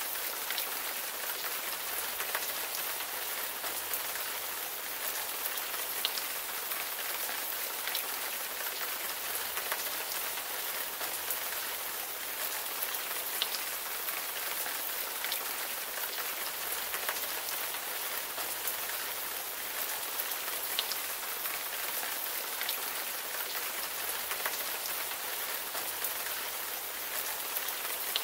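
Steady rain: a dense, even hiss of falling rain with many individual drops ticking through it.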